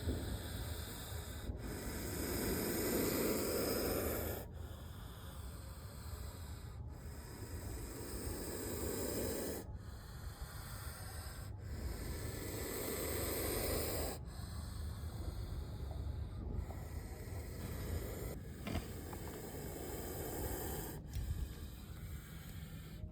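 A snake hissing in long, rough breaths, several swells a few seconds apart.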